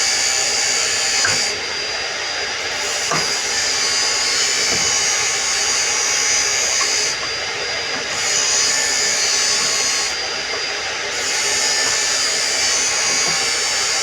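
A power tool running continuously, its sound dropping slightly for about a second three times.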